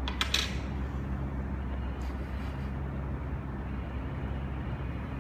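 Steady low mechanical hum, as of a vehicle engine or building machinery, throughout. Near the start come a few sharp clinks as the glass bottle is handled on the glass-topped table.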